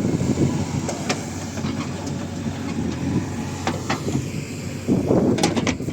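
Backhoe loader's diesel engine running under load, with occasional metallic clanks. A louder surge with several clanks comes near the end.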